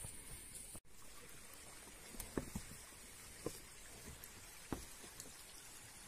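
Faint trickle of a small mountain stream, with a few soft, irregular footsteps on a dirt path.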